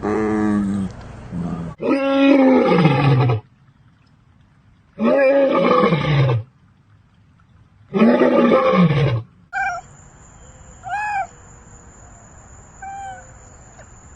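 A big cat roaring: four long, loud calls a couple of seconds apart, each rising briefly and then falling in pitch. About ten seconds in, these give way to a few short, fainter, higher calls over a faint steady high whine.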